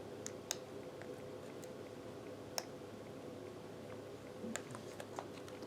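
A few sharp, scattered clicks and taps of laptop plastic parts being handled and fitted back together, over a faint steady hum.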